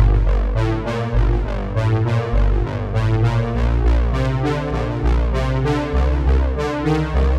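Background music: synthesizer and electronic keyboard over a deep bass with a steady beat.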